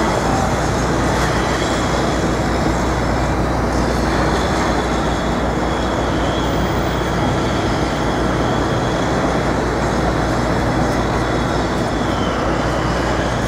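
Steady city street noise: a continuous mix of traffic rumble and hiss with no single event standing out.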